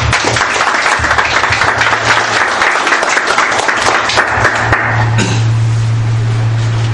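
An audience applauding for about five seconds, the clapping thinning out and dying away, over a steady low hum.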